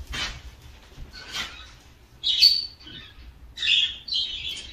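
Ceramic bowl and plate being handled, giving a few short scrapes and squeaks; the two clearest come about halfway and near the end.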